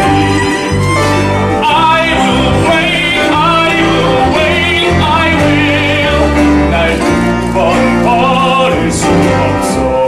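Live musical-theatre accompaniment: a violin melody with vibrato over held bass notes and chords.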